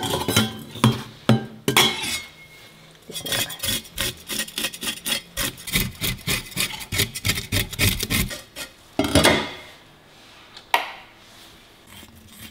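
Kitchen knife scraping the scales off a whole fish in a stainless-steel sink: a run of quick rasping strokes, densest from about three to eight seconds in. Then comes one louder scrape and a single sharp click near the end.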